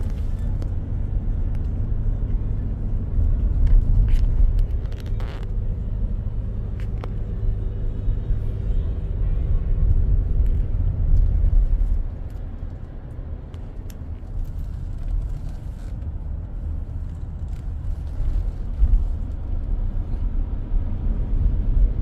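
Car interior while driving: steady low engine and road rumble inside the cabin, easing off slightly about halfway through.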